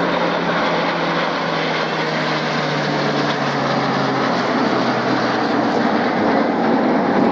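Flypast of Red Arrows BAE Hawk jets with an RAF King Air twin turboprop in formation: a loud, steady rush of engine noise whose tone falls slowly in pitch as the aircraft go by.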